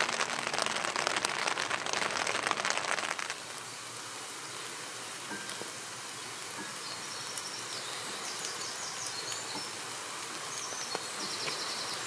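Rain pattering, dense and crackly with many close drops for about the first three seconds, then dropping to a softer steady rain. Over the softer rain a small bird sings short high trilled phrases, several times.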